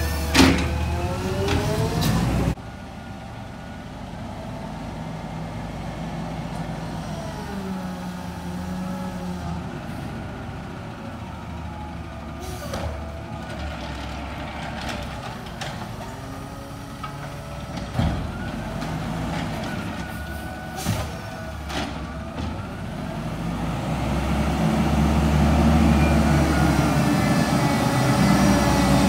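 Natural-gas automated side-loader garbage truck (McNeilus ZR) at work: at the start its arm dumps a cart with sharp knocks over a rising hydraulic whine. Then it runs farther off with a few more sharp bangs, and its engine grows louder near the end as the truck comes closer.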